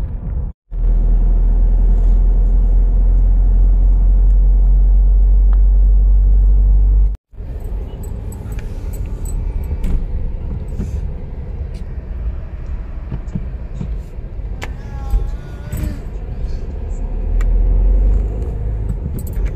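A car driving along a road: steady low road-and-engine rumble, broken twice by brief drops to silence, once just under a second in and again about seven seconds in. The deepest, heaviest rumble fills the first stretch between those two breaks.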